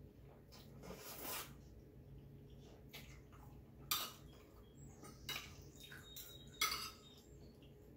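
Metal fork and spoon clinking and scraping against a ceramic plate while twirling fettuccine, with a few sharp clinks, the loudest about four seconds in and near the end. A short slurp of noodles comes about a second in.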